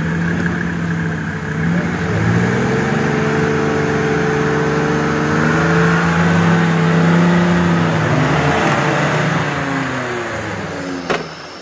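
Off-road trophy prototype's engine revving hard under load in a mud pit: the revs climb about two seconds in, hold for several seconds, then fall away. A single sharp knock comes near the end.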